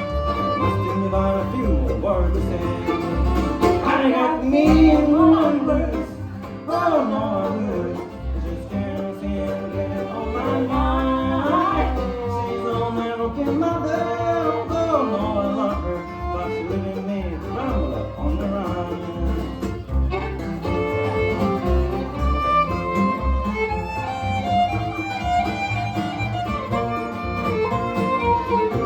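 A bluegrass band playing live: fiddle and guitar carrying the tune over a steady low beat.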